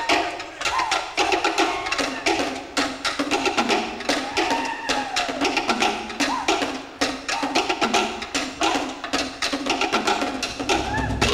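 A Cook Islands drum ensemble plays a fast, driving rhythm dominated by sharp wooden strikes on slit log drums (pātē). A few short rising-and-falling tones sound over the drumming.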